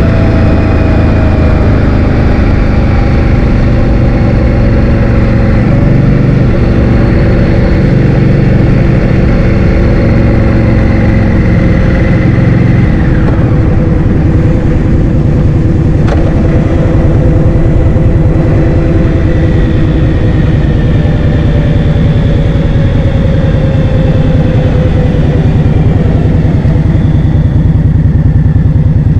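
Heavy wind noise on the microphone of a moving scooter, with the scooter's drone underneath. The drone's pitch drifts slowly lower, and the low wind noise changes character about 13 seconds in.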